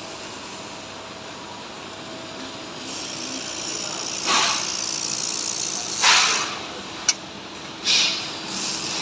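Laser welding machine running with a steady hum and hiss, broken by four short bursts of hissing about two seconds apart, and one sharp click between the last two bursts.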